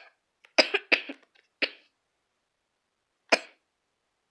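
A person coughing in short, sharp bursts: a quick run of about three coughs near the start, then single coughs about a second and a half later and again near three seconds in.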